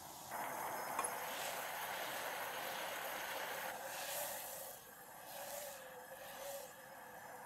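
Red wine and balsamic vinegar sauce at a rolling boil in a stainless steel saucepan on a gas burner, reducing: a steady bubbling hiss. It gets louder just after the start and eases a little about four seconds in.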